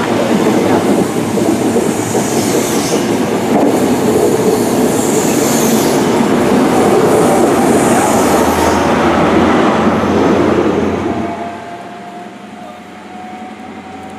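A Great Western Railway InterCity 125 (HST) pulls out close past the platform: its coaches rumble and clatter over the rails, with a brighter rattle every few seconds as the bogies go by. About eleven seconds in, the rear Class 43 power car clears and the noise falls away, leaving a faint rising whine.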